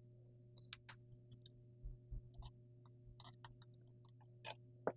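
Faint, scattered ticks and clicks of small metal shotgun parts (the barrel support and its screws) being handled during reassembly, with a sharper click near the end, over a steady low hum.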